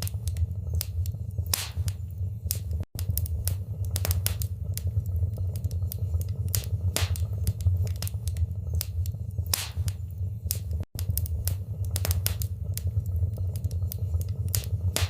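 Wood fire crackling in a fireplace: irregular sharp pops and snaps over a steady low rumble of the flames. The sound cuts out for an instant twice, about three seconds in and near eleven seconds.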